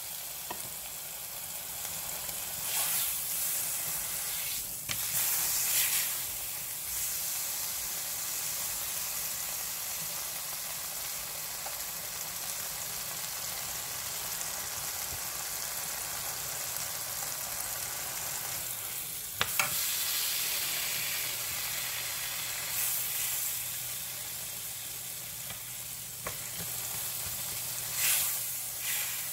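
A slice of ham frying in cooking spray and pan drippings in a square copper-coloured nonstick skillet: a steady hiss of sizzling fat that swells a few times, with a sharp click about two-thirds of the way through. Near the end a fork works the ham in the pan.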